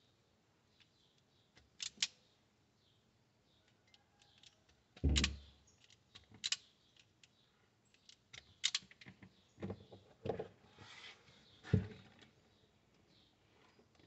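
Spring-loaded automatic wire stripper clicking and snapping as it strips the insulation from thin refrigerator sensor wires: scattered sharp clicks, the loudest a heavier snap with a low thud about five seconds in.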